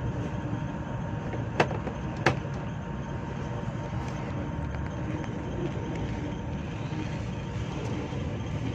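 Steady low rumble of a diesel train, heard from inside a locomotive cab, with a faint steady hum. Two sharp clicks come about a second and a half and two seconds in.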